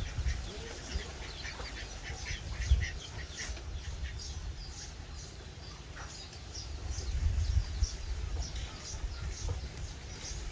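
Chicks peeping over and over in short high calls, several a second, over a low rumble.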